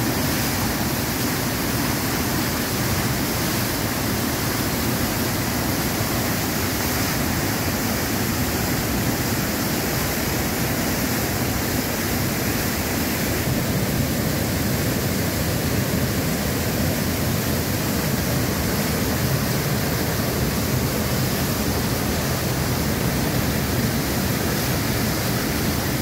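Waterfall in flood, its flow swollen by heavy rain: a steady rush of muddy water crashing over rocks.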